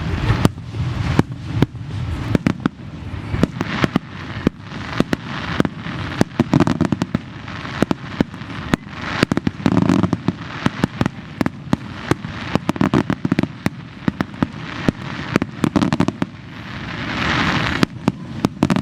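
Fireworks display: a dense, irregular run of sharp bangs and crackles, with deeper booms mixed in.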